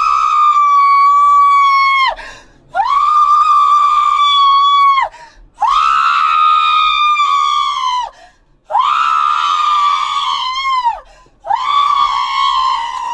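A woman screaming: five long, high, held screams in a row, each about two seconds, with a short break for breath between them.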